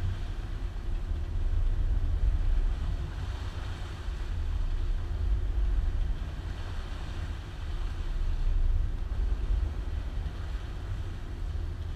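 Boat running under way: a steady low engine rumble with a rushing wash of wind and water that swells and eases every few seconds.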